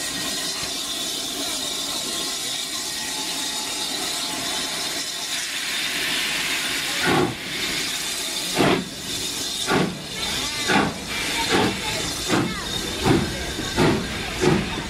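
BR Standard Class 7 'Britannia' Pacific steam locomotive 70013 Oliver Cromwell hissing steam from its cylinders, then starting away about seven seconds in. Its exhaust beats come faster and faster as it gathers speed.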